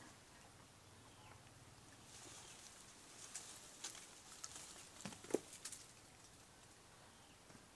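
Faint scattered clicks and crackles, a handful in quick succession in the middle, with one sharper click among them, over an otherwise quiet background.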